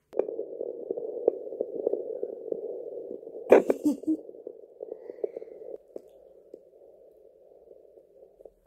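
Handheld fetal Doppler's speaker hissing and crackling as the probe is handled and moved onto the belly, the hiss dropping quieter about six seconds in.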